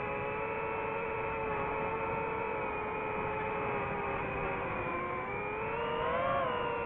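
DJI FPV drone's motors and propellers whining steadily in flight. The pitch dips about five seconds in, then rises sharply and falls back near the end.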